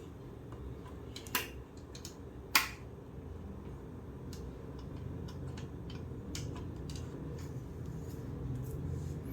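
Parts of a Philips steam iron clicking and knocking as it is taken apart by hand. There are two sharp snaps a little over a second apart, then lighter scattered ticks, over a steady low hum.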